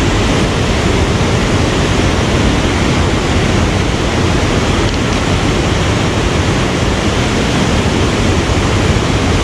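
Loud, steady rush of flowing water at a dam, an even noise with no breaks.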